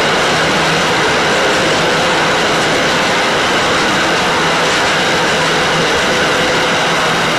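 Container wagons of a long intermodal freight train rolling past close by: a loud, steady running noise of steel wheels on rail.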